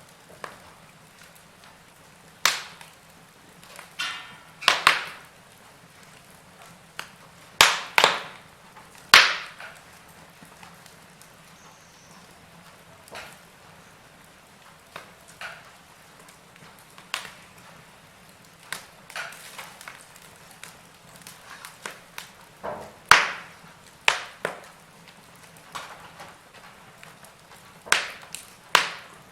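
Wood fire crackling: irregular sharp pops and snaps, a handful of them loud, over a soft steady hiss.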